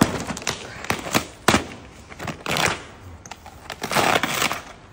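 Cardboard lid of a round firecracker box being torn open by hand: sharp snaps and clicks, then two longer ripping tears about two and a half and four seconds in.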